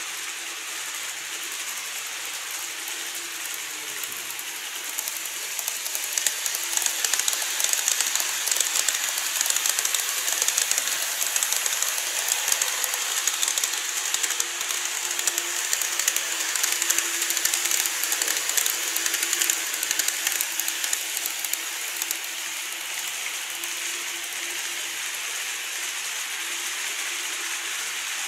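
Model train running on its track: fast clicking of the wheels over the rails with a steady motor hum, louder from about five seconds in until about twenty-two seconds in, then easing off.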